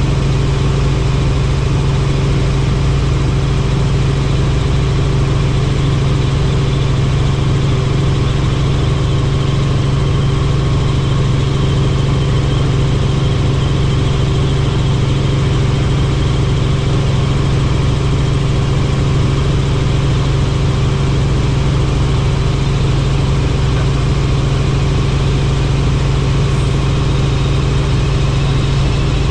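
Helicopter in steady flight: a loud, unchanging drone of engine and rotors with a constant low hum.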